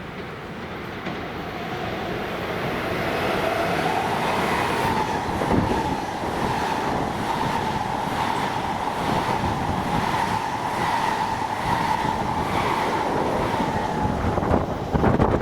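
Long Island Rail Road train approaching and passing, growing louder over the first few seconds. A steady whine is held through the pass, and the wheels knock over rail joints a little over five seconds in and again near the end.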